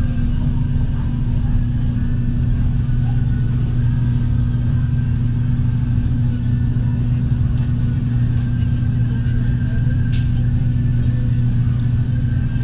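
Car driving: a steady low rumble of engine and road noise.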